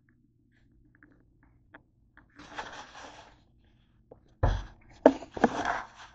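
Handling noise of a hand-held camera being carried and set down on a table: a rustle, then two loud thuds and more rustling and scraping as it comes to rest.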